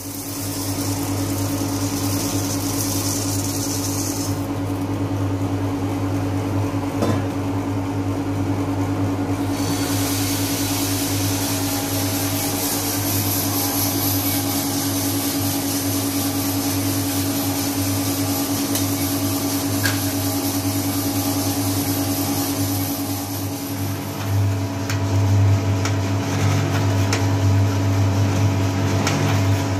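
Small drum coffee roaster running: a steady motor and fan hum. The low part of the hum grows louder near the end.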